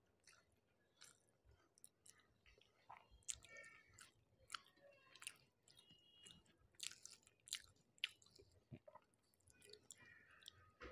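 Quiet, close-up chewing of a rice-and-fish meal: irregular soft wet mouth clicks and smacks, with a few brief faint squeaks.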